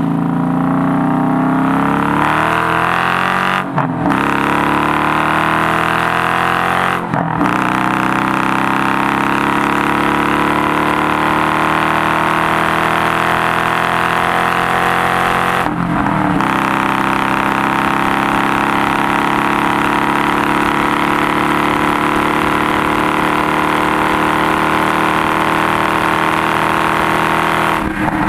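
2012 Dodge Challenger R/T's 5.7-litre Hemi V8 through a Zoomers aftermarket exhaust, heard from inside the cabin, accelerating through the gears of its six-speed manual. The note climbs in pitch and breaks briefly at gear changes about 4, 7 and 16 seconds in, then runs steadily, rising only slowly.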